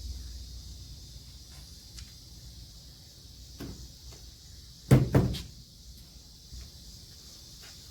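Two loud clunks in quick succession about five seconds in, with a few faint knocks and handling noises around them.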